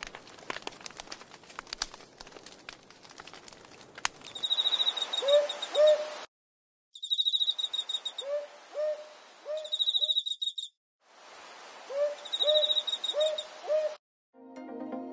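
Repeated short hooting bird calls, two to four in each of three short stretches separated by abrupt gaps, over a steady high-pitched hiss. Before them come about four seconds of irregular crackling clicks.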